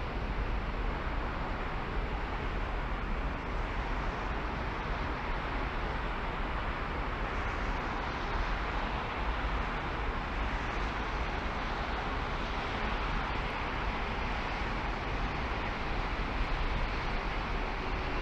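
Steady noise of a car driving: an even low rumble with a broad hiss of tyres and wind over it.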